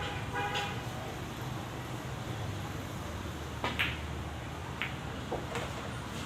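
Steady background hum with a brief horn-like toot near the start, then a few sharp clicks a little past the middle, like billiard balls knocking together.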